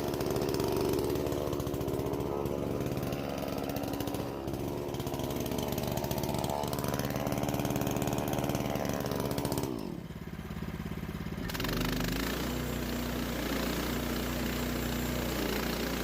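Band sawmill's engine running under load as the blade cuts slowly through a large walnut log. About ten seconds in the pitch drops and the sound falls away, then a steady, lower engine hum carries on.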